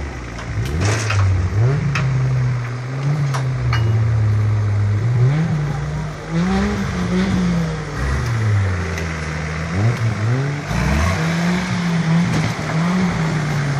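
Car engine revving hard, its pitch climbing and falling again and again as it accelerates, lifts off and shifts gear, with a brief drop about ten and a half seconds in.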